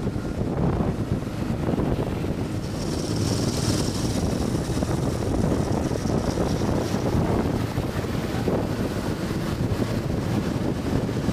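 Wind buffeting the microphone of a moving motorcycle over the steady running of motorcycle engines. A higher hiss swells for a few seconds near the middle.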